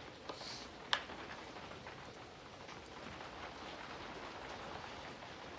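Steady rain falling, an even hiss of drops, with two short sharp ticks in the first second, the louder one about a second in.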